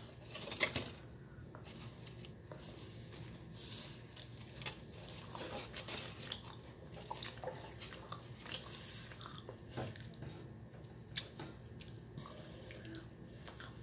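A person quietly chewing a mouthful of veggie burrito, with scattered small clicks.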